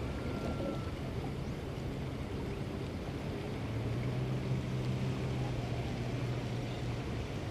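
Low, steady hum of a boat engine running in the harbour, growing louder about three and a half seconds in.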